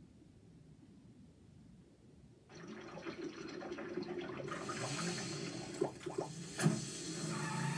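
Soda pouring and fizzing into a paper cup: a cartoon sound effect heard through a TV speaker. It starts about a third of the way in, with two sharp pops about two-thirds of the way through.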